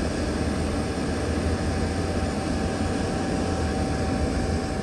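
Dodge Caravan minivan driving, heard from inside the cabin: a steady low engine and road rumble with a thin, even whine held over it.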